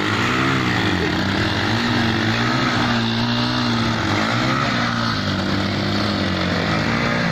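Two 70 cc motorcycle engines held at high revs, straining against each other on a tow rope; their pitch wavers up and down as the revs rise and fall.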